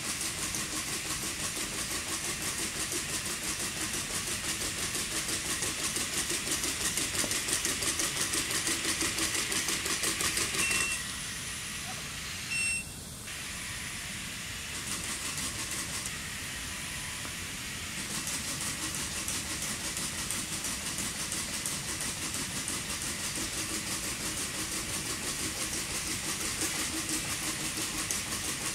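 Unitree A1 quadruped robot trotting: a steady hiss-like whir from its leg motors with dense rapid ticking. It drops to a quieter level for several seconds about a third of the way in, then picks up again.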